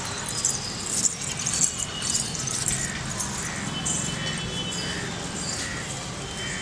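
Outdoor city ambience: a steady hum of distant traffic with scattered short bird chirps.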